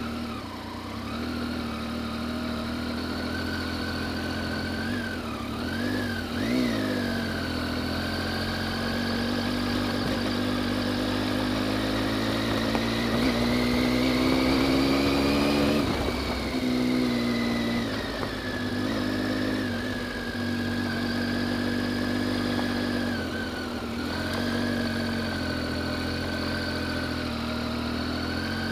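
Motorcycle engine running under way on a dirt track. The pitch climbs gradually as the bike speeds up through the middle, drops suddenly about sixteen seconds in as the throttle is shut or a gear is changed, then runs steadily with small dips.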